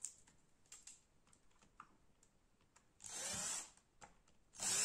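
A few light plastic clicks, then a small drill run in two short bursts, the second near the end, drilling out the plastic rivets that hold the keyboard to the laptop's top cover.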